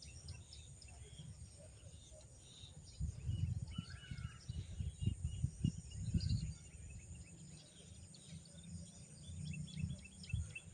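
Small birds chirping over and over, many short calls, over a low rumbling noise that swells from about three to seven seconds in.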